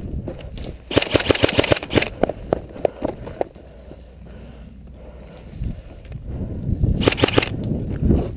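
Airsoft guns firing in rapid bursts: a fast run of sharp clicks about a second in, scattered shots after it, and another short burst near the end.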